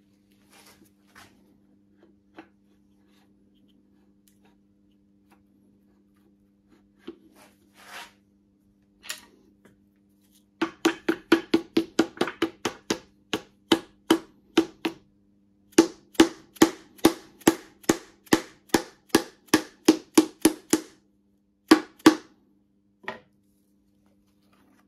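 Quick, light mallet taps on a piston crown, driving a ringed piston into the cylinder bore of a Chrysler 440 V8 block while pliers squeeze the rings as a makeshift ring compressor. The taps come about three to four a second in two long runs with a short pause between, then two more near the end, over a faint steady hum.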